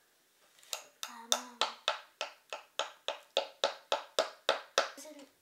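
A skate tool used as a hammer, knocking a truck mounting bolt down through its hole in a grip-taped skateboard deck: about fifteen quick, even taps, roughly three a second, starting just under a second in.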